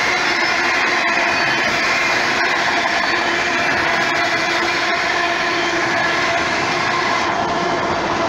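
Autorack freight cars rolling past close by: a loud, steady rumble and rattle of wheels on the rails, with faint steady whining tones running through it.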